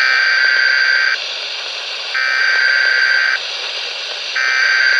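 Emergency alert data header (SAME) on a weather radio broadcast: three bursts of warbling digital data tones, each about a second long and a second apart, over steady radio hiss. It is the coded signal that sets off alert receivers for a severe weather warning.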